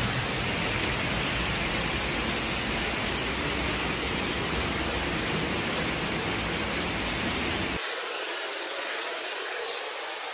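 Waterfall's steady roar of falling water. About eight seconds in, the low rumble drops away and leaves a thinner hiss.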